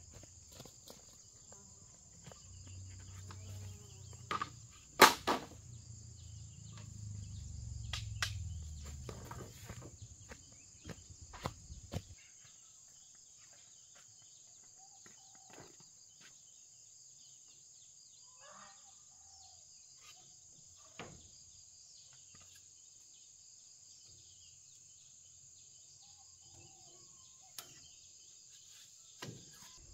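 Steady high-pitched insect chirring, with a low rumble through the first twelve seconds. Several sharp knocks come through it, the loudest about five seconds in.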